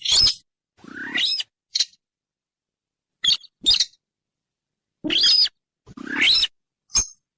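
Sintar bird calls, as played for a hunting lure: short high notes and a few longer calls that rise and then fall, coming in small groups with pauses of a second or more between them.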